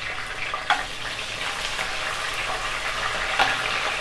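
Curry leaves sizzling in hot oil in a kadhai as a tempering, a dense hiss that grows a little louder, with a couple of sharp clicks of a steel ladle against the pan.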